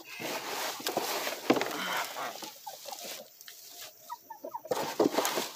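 Dry chopped corn-stalk forage rustling and crunching as it is scooped and pressed by hand, with chickens clucking briefly near the end.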